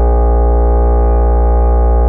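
Loudspeaker of a homemade amplifier-driven sound cannon blaring a loud, steady, low-pitched buzzing tone, rich in overtones, used to try to shatter a glass.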